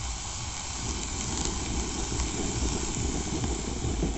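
Vegetables sizzling in hot oil in a pan on a portable gas stove, with the burner's steady hiss and a low rumble of wind on the microphone.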